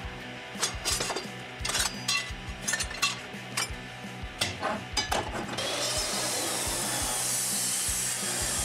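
A few sharp metallic clinks and knocks as steel flat bar is handled and set in an abrasive chop saw, then about two thirds of the way in the saw starts cutting through the steel with a steady hiss.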